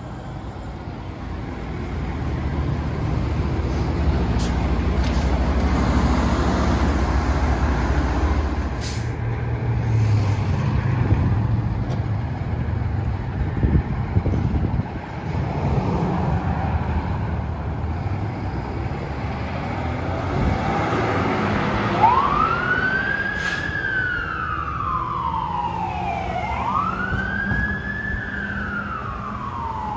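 Fire apparatus diesel engines rumbling heavily as the trucks pull past. From about two-thirds of the way in, a wail siren sweeps up quickly and falls away slowly, about once every four seconds.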